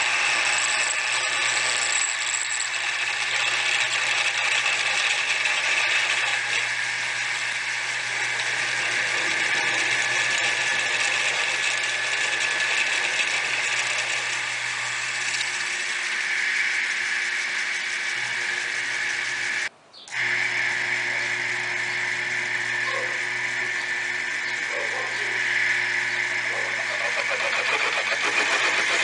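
Homemade milling machine running: a steady motor hum with rattling, cut off abruptly for about half a second roughly two-thirds of the way through.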